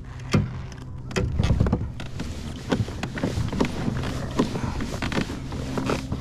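Handling noise on a kayak as a just-landed bass is swung in and gripped by the lip: irregular knocks, clicks and rustles of hands, fish and gear close to the microphone, over a faint steady low hum.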